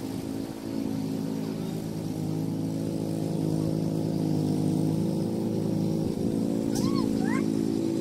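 An engine running steadily with a low, even hum that grows a little louder over the first few seconds.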